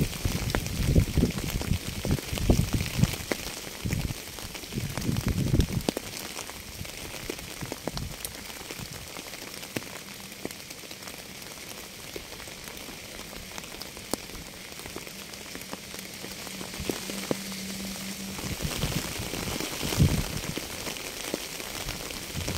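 Steady rain falling, an even hiss of drops with scattered single drips standing out, and low rumbling in the first few seconds and again near the end.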